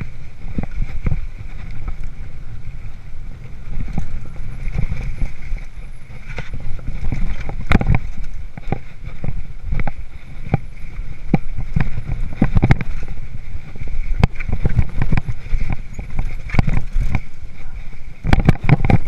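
Mountain bike hardtail riding over a rough, rocky dirt trail, heard from a chest-mounted camera. A steady rumble of wind and tyres runs throughout, with frequent sharp clacks and rattles from the bike at irregular moments as it hits bumps.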